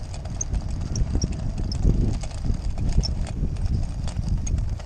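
Footsteps on loose rock and gravel: a run of short knocks and crunches, with wind rumbling on the microphone.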